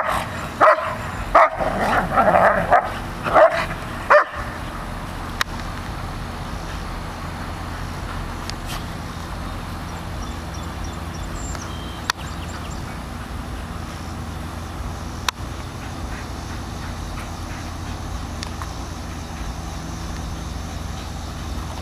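Airedale Terrier and yellow Labrador play-fighting, with a quick run of short barks and yips for the first four seconds or so; after that only a steady low background noise with a few faint clicks.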